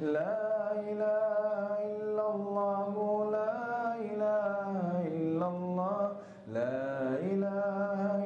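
A man chanting Islamic dhikr into a microphone in a slow, drawn-out melody, holding long notes with gliding pitch, with a short breath about six and a half seconds in.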